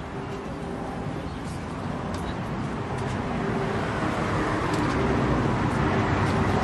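Road traffic rumble from a motor vehicle on the street, growing steadily louder.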